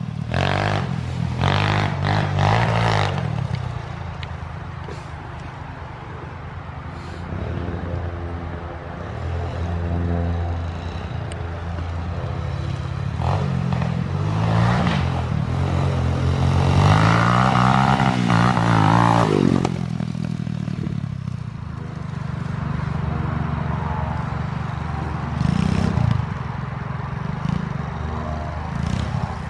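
200cc pit bike engine, running on a freshly fitted new cylinder, revving up and down as it is ridden. It rises to its loudest about two-thirds of the way through, then cuts back.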